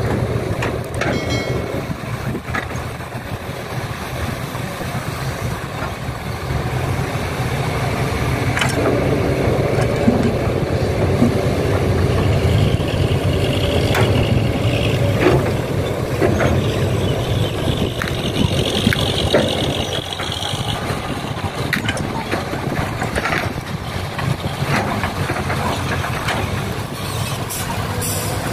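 Heavy diesel engines of an excavator and dump trucks running steadily, with scattered knocks and clanks throughout.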